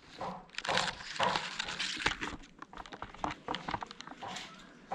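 Close, scratchy rustling and crackling of a Siamese cat's fur rubbing against the microphone, broken by a string of small clicks.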